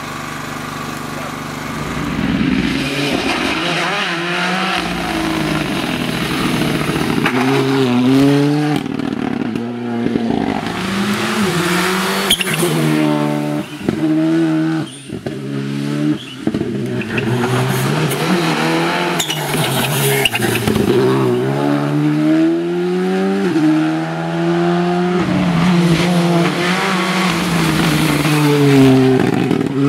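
Rally2 cars' turbocharged engines accelerating hard, the revs rising and dropping over and over through gear changes as the cars pass one after another on the test road, with a few sharp cracks among them. The first couple of seconds are quieter and steadier.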